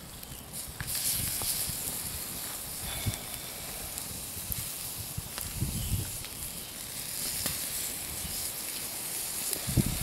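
Wood campfire burning with small crackles, and sausages sizzling on the grill grate with a steady hiss.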